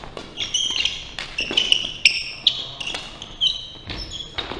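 Badminton doubles rally on a wooden hall floor: sneakers squeaking in many short, high chirps as players move, with sharp racket strikes on the shuttlecock about once a second.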